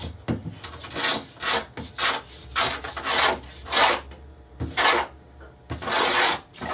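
Block plane being pushed along the edge of thin plywood in a series of short strokes, roughly one a second, some longer than others. The plane is struggling on the plywood edge and is soon given up for sandpaper.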